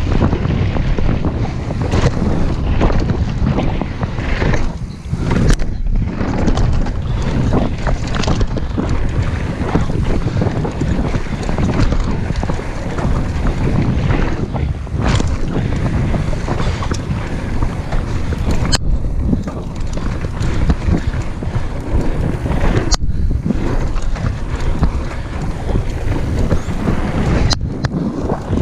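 Heavy wind buffeting on a camera microphone while a mountain bike is ridden down a dirt trail, with scattered knocks and clicks throughout.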